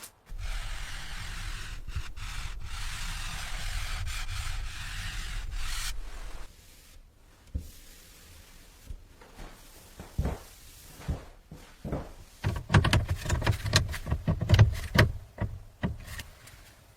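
A steady rubbing, scraping noise for about six seconds that stops abruptly, followed after a lull by a run of sharp knocks and thumps, which grow busier near the end.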